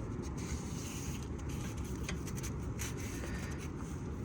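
Irregular crunching and scraping of hard, icy snow being handled, over a steady low rumble.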